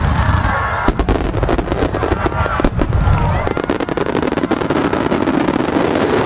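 Large aerial firework shells bursting in rapid succession: a dense string of sharp bangs through the first few seconds, thinning about two-thirds of the way in to a continuous crackling hiss from the falling stars.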